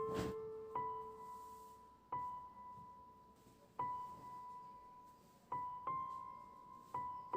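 Background music: slow, sparse solo piano, single notes struck every one to two seconds and left to ring out. A brief noise sounds at the very start.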